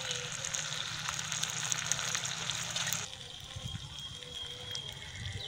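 Spicy chili broth sizzling and bubbling in a frying pan over a wood fire, a dense crackling hiss. About three seconds in it cuts off suddenly to a much quieter outdoor background.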